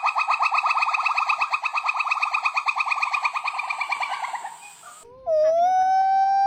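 An animal's calls: a rapid pitched trill of about ten pulses a second that fades away over four seconds, then, after a short pause, one long steady call that rises in pitch at its end.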